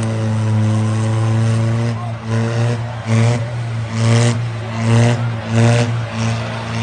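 Diesel tractor engine running hard at high revs during a stunt, a steady drone with loud surges about once a second from roughly two seconds in.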